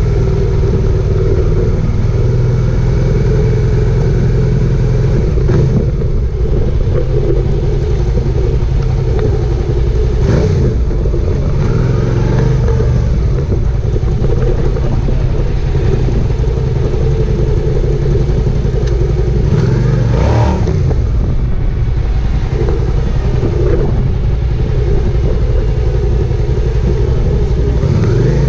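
Suzuki SV650S 645 cc V-twin engine running under way, recorded close to the fuel tank, over steady wind and road noise. The engine note rises a few times as the bike accelerates.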